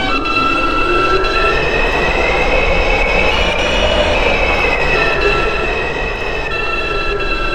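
A New York City subway 5 train running between stations, with a rumble from the wheels and a propulsion whine that climbs in pitch for about four seconds and then drops. Several steady high squealing tones sound over it.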